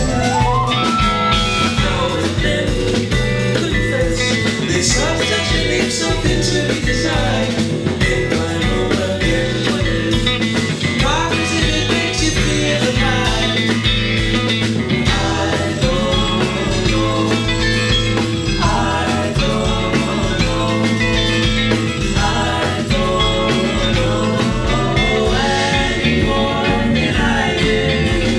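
Live band playing an instrumental passage: drums and bass keep a steady groove under a lead line that slides upward in pitch every few seconds.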